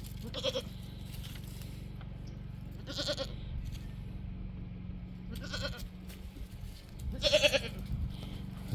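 Goats bleating: about four short wavering bleats spaced a couple of seconds apart, the loudest near the end.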